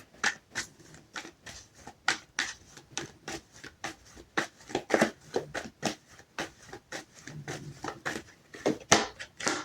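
Tarot cards being shuffled and handled: a string of irregular quick clicks and papery snaps, a few a second.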